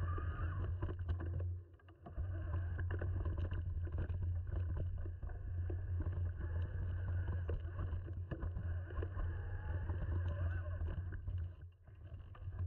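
Mountain bike rolling over a rough dirt trail of roots and stones: a steady low rumble with frequent clicks and rattles from the bike over the bumps, dropping away briefly twice.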